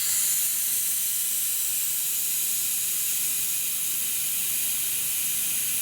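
Steady hiss of compressed air venting through the unloader valve of a 1968 DeVilbiss 445 10 hp air compressor, bleeding pressure off the pump once the pressure switch has cut the motor off. The hiss swells slightly at the start and then holds even.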